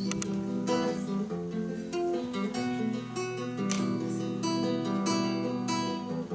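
Nylon-string classical guitar strumming chords, about two strokes a second, as the song's instrumental introduction.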